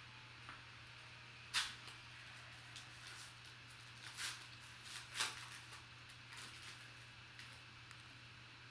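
Foil trading-card pack wrapper crinkling and tearing as it is ripped open by hand, with sharp crackles about one and a half, four and five seconds in and lighter rustling between, over a faint steady hum.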